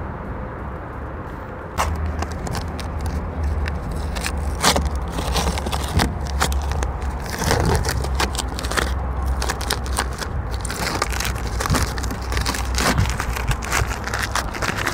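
Masking tape being peeled off a car's bare side-mirror housing and crumpled in the hand: irregular crackling, tearing and rustling from about two seconds in, over a low steady rumble.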